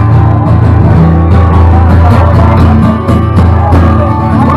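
Loud live band music with guitar in a crowded pub, with a heavy, steady bass.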